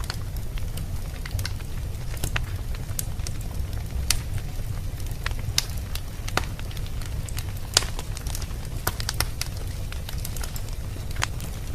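Wood fire burning in a fireplace, crackling with irregular sharp pops and snaps over a steady low rumble. One pop about two-thirds of the way through is louder than the rest.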